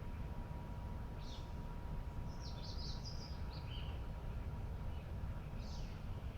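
Songbirds chirping: a short call about a second in, a quick run of chirps from about two to three and a half seconds in, and another call near the end, over a steady low rumble of background noise.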